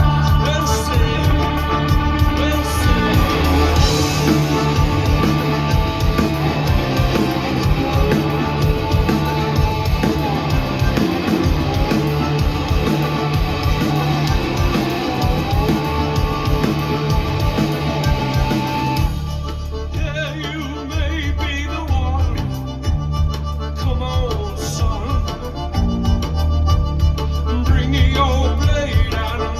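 A rock band playing live, with a reedy, wheezing squeezebox-like lead over the band. About nineteen seconds in the full sound drops away to a sparser passage with a wavering melodic line, and the band builds back up near the end.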